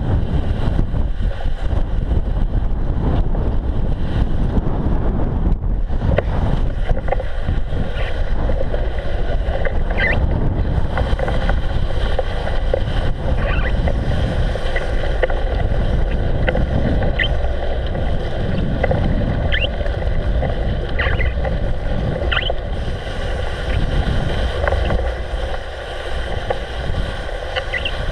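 Wind buffeting the microphone of a camera mounted on a bicycle's handlebars, over the steady rumble of the bike rolling along a snowy, slushy path, with scattered short high squeaks. The rumble eases a little near the end.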